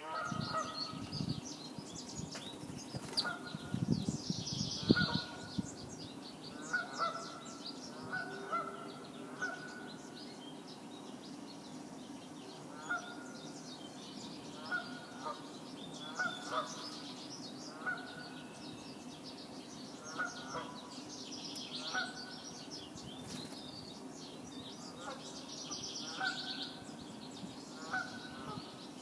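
Outdoor bird calls: a long series of short repeated calls about once a second, with higher, quicker chirps from smaller birds over them.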